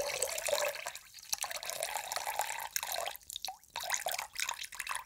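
Water trickling and dripping unevenly, with many small splashes and clicks; it fades briefly about a second in and again past the middle.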